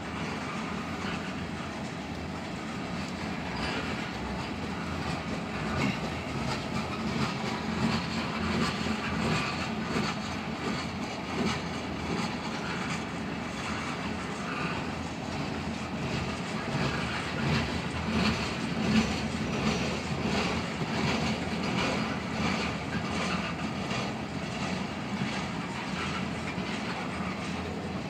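Railroad tank cars of a freight oil train rolling past: a steady rumble of steel wheels on rail with repeated clickety-clack over the rail joints.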